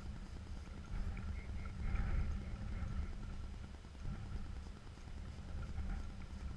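Wind buffeting the microphone, giving an uneven low rumble, with a few faint short high calls between about one and three seconds in.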